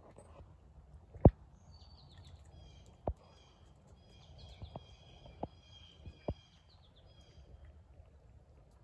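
North American beaver chewing leafy branches in the water, giving about five sharp crunching clicks, the loudest about a second in. Birds sing in the background.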